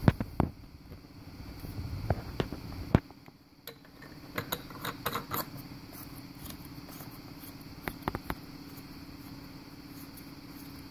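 Light clicks and taps from a hand handling the plastic coolant expansion tank and its cap, a few near the start, a cluster in the middle and a couple more later, over a steady low hum.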